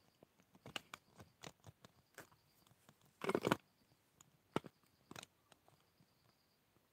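Handling noise of a phone held in the hand: scattered light clicks and short rustles, with a louder rustling burst about three seconds in.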